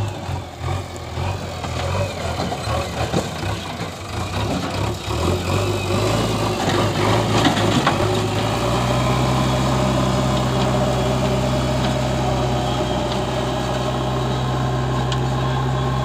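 Diesel engine of a JCB backhoe loader running, with uneven revs and knocking and clattering in the first half. About eight seconds in it settles into a steady drone as the loader pushes soil with its front bucket.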